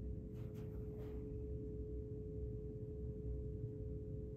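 Steady machinery hum inside a high-rise building: a constant mid-pitched tone over a low rumble, with a faint brief rustle about half a second to a second in.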